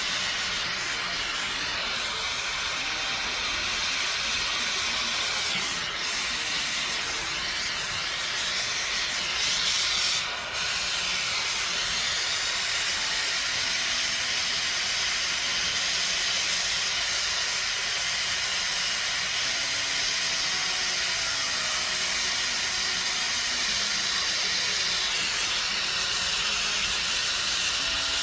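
Gas brazing torch flame hissing steadily while the evaporator's high- and low-pressure refrigerant lines are brazed, swelling louder briefly about ten seconds in and then dipping for a moment.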